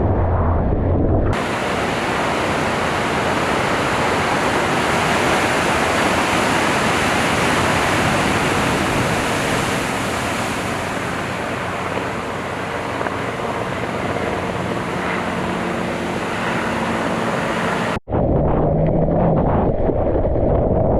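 Steady rushing roar of big-wave surf and wind on the microphone, cut in sharply about a second in and cut off abruptly near the end. It is framed by a lower, muffled rumble at the start and end.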